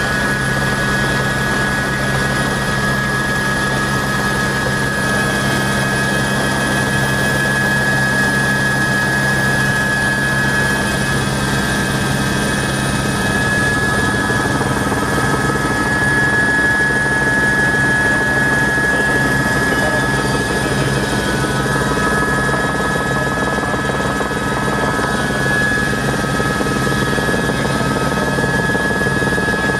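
Helicopter running steadily: a constant high turbine whine over a low rotor and gearbox drone, with no change in pitch or level.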